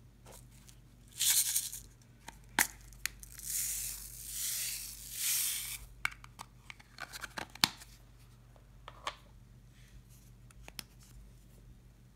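Tiny plastic beads poured from a clear plastic container onto slime: a soft hissing trickle of about two seconds in the middle, after a short rustling burst and a click near the start. Light clicks and taps follow as the plastic container is handled and tapped out.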